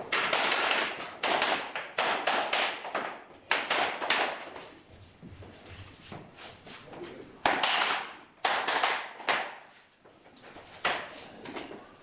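A hammer knocking laminate planks together to seat their tongue-and-groove joints: about ten sharp, irregular blows, each ringing out briefly in the bare room, with a pause in the middle.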